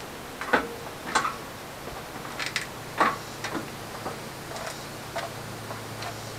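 Scattered light clicks and knocks, irregular and about one or two a second, from footsteps and a person handling things at a camper doorway.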